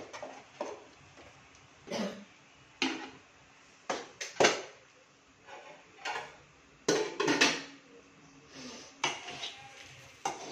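Metal spoon clanking and scraping against metal pans, in irregular knocks about a second apart, as cooked rice is scooped into a kadai and stirred into the egg mixture.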